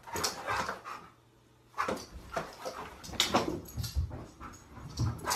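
Husky whimpering in short bursts, with a pause about a second in, then more whimpers over low thumps of movement on the floor.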